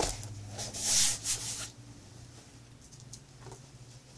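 Large diamond painting canvas being turned over and smoothed flat by hand, its paper surface rubbing and rustling under the palm. The rustle is loudest in the first second and a half, then fades to faint rubbing.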